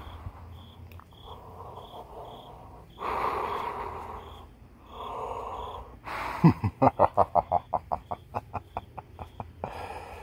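A person breathing heavily and wheezing in three long hissing breaths, then a loud, rapid, rattling laugh of about twenty pulses that slows down. A faint high chirp, like a cricket, repeats about twice a second through the first part.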